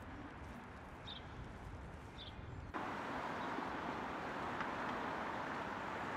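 Outdoor city street ambience: a quiet background hum with a bird chirping twice. About two and a half seconds in it cuts abruptly to a louder, steady wash of street noise.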